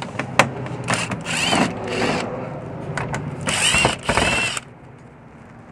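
Cordless drill-driver backing screws out of a car's plastic undercover in several short bursts of well under a second, its motor whine rising and falling with each run. A sharp click comes just before the first.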